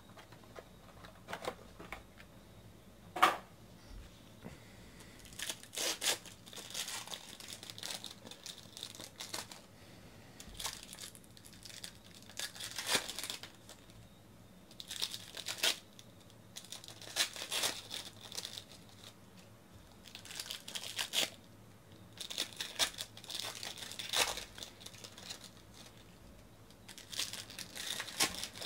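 Foil wrappers of Bowman baseball card packs crinkling and tearing as the packs are ripped open and the cards handled, in short bursts of rustling every second or two. A single sharp click about three seconds in.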